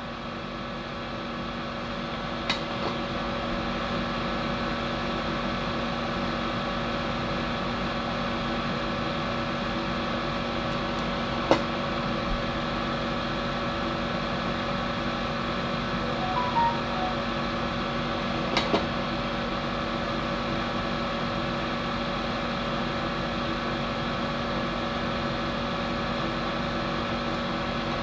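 A small electric fan or motor runs with a steady hum, broken by a few light ticks.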